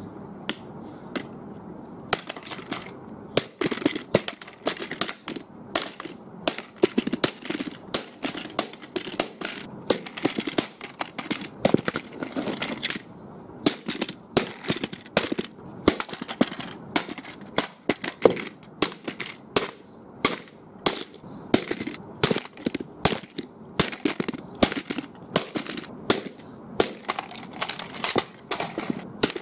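Sharp knocks or cracks in an irregular run, about one or two a second, some much louder than others, over a steady background noise.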